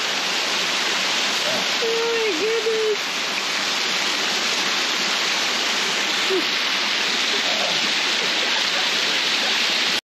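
Waterfall: the steady rush of water pouring over rock. A brief tone sounds about two seconds in.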